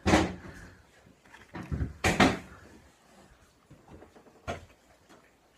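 Two loud sudden knocks or crunches about two seconds apart, each dying away quickly, with a few fainter ones between.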